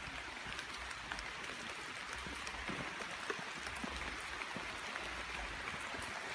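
Steady rain falling: an even hiss with scattered drops tapping close by.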